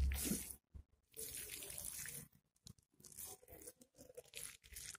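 Hands squishing and kneading a wet minced-chicken seekh kebab mixture in a glass bowl, in soft, irregular squelches, with a low thump right at the start.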